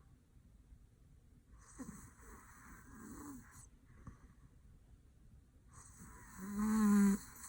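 A sleeping man snoring: a breathy snore about two seconds in, then a louder, pitched snore near the end.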